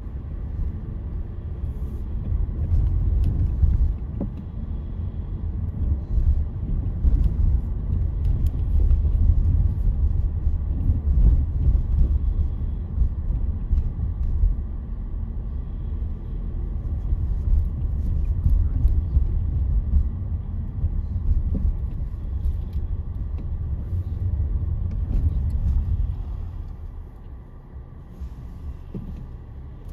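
Road noise heard from inside a moving car: a steady low rumble of tyres and engine, dropping quieter for the last few seconds.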